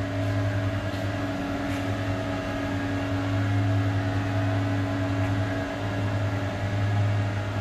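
Steady deep electrical hum with a whir of cooling fans from switch-room electrical gear: variable-speed drive cabinets and switchboards running.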